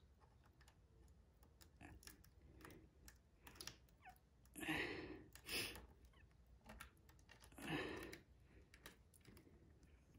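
Faint small clicks and handling noise as a steel brake cable is threaded through the cable anchor bolt of an Xtech cable-actuated hydraulic disc brake caliper, with three brief louder scuffing noises around the middle.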